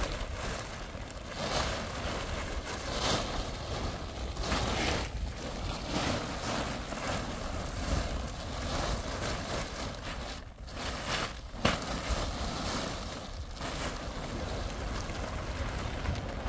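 Wind blowing in gusts and buffeting the microphone, a steady low rumble under a rushing noise that swells and eases every second or two.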